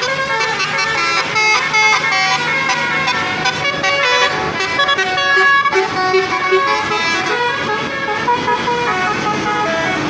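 Basuri 'telolet' musical bus horns playing tunes on a convoy of buses, the notes changing in quick steps and several horns overlapping.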